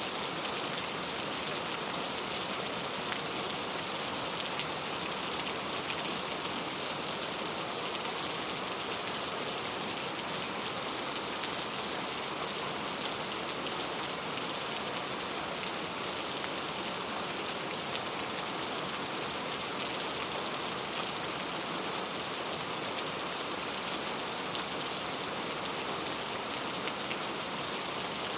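Steady rain falling on a road: an even hiss with faint ticks of single drops.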